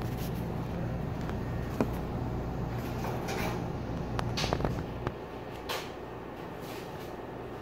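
A low steady hum that drops away about five seconds in, with scattered clicks and a few short scraping knocks, like small objects being handled.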